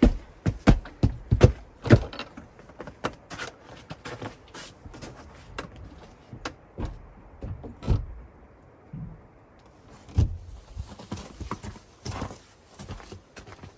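A series of short thuds, quick and regular for the first two seconds, then fewer and irregular, with a quieter stretch just past the middle.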